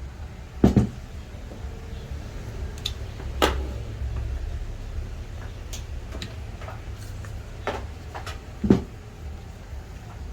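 Three sharp knocks, about a second, three and a half and nine seconds in, with fainter clicks between them, as hard objects are handled and set down, over a low steady rumble.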